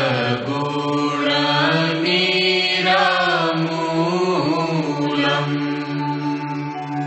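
A Hindu devotional aarti chanted slowly in Sanskrit, with long held notes that slide up and down in pitch.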